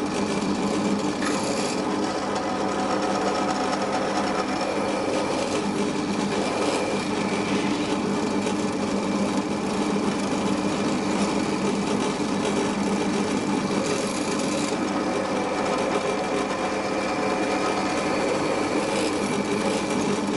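Small bench drill press running at high speed with a steady motor hum and whine, a centre drill cutting countersunk holes into steel sheet.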